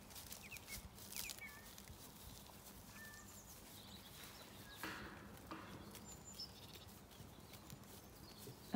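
Quiet pasture sound of black Zwartbles sheep grazing close by: soft clicks and rustles of grass being cropped, with scattered faint bird chirps and a slightly louder rustle about five seconds in.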